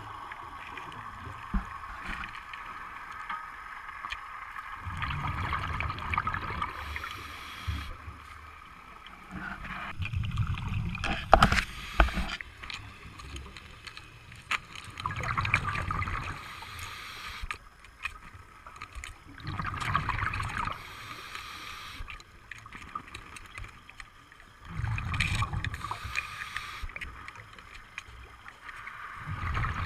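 Scuba diver breathing through a regulator underwater: exhaled bubbles rumble in bursts about every four to five seconds, with a hissing sound between them. A couple of sharp knocks come about eleven to twelve seconds in.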